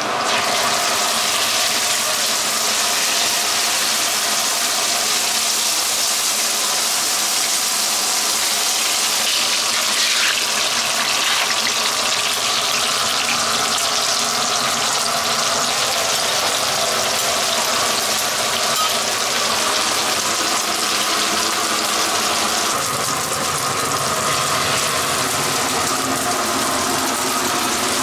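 Egg-battered meat patties sizzling in oil on a flat griddle: a loud, steady hiss, with a steady hum underneath.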